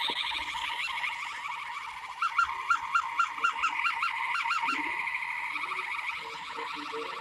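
A warbling, siren-like electronic tone with a fast pulse, breaking into about ten quick rising-and-falling whoops in the middle before settling back to a steadier warble.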